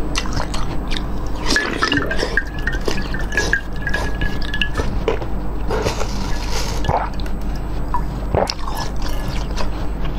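Close-up crunching and chewing of a block of frozen green basil-seed ice, with many short crackles and wet, drippy mouth sounds. A thin steady squeal runs for about three seconds near the start.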